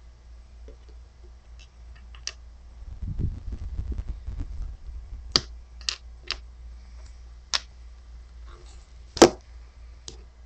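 Sharp clicks and taps of a small hard piece being handled and set down on a wooden tabletop, about seven in all, the loudest just before the end. A few seconds in comes a stretch of low rubbing rumble from handling.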